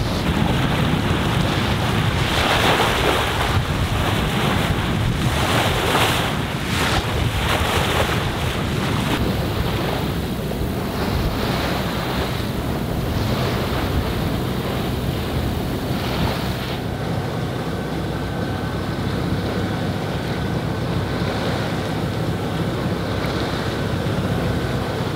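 Wind buffeting the microphone over the rush and slosh of waves along the hull of a Sabre 36 sailboat under sail in building swell, with louder surges of water in the first several seconds. A faint steady high whine comes in about two-thirds of the way through.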